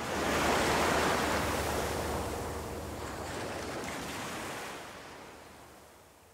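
Surf sound effect: one ocean wave rushing in, loudest in the first second or so, then washing away and fading gradually.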